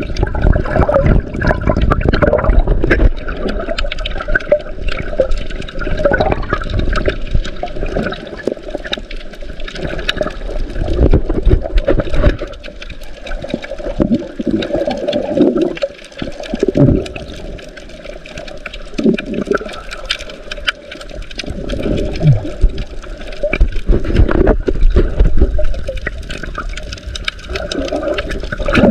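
Water sloshing and gurgling around an underwater camera, heard from below the surface. It surges and eases every few seconds as the camera moves through the water.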